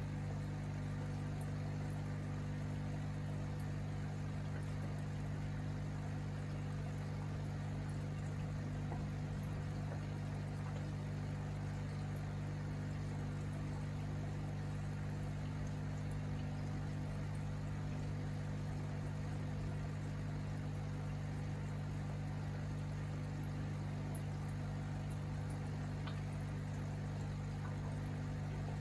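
Aquarium running steadily: a constant low hum from the tank's equipment, with water bubbling where a stream of bubbles breaks the surface.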